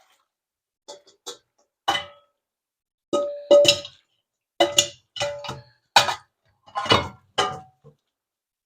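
Metal cookware clanking in the sink while pasta drains: about a dozen irregular knocks of a pot and strainer against each other and the sink, each with a short metallic ring.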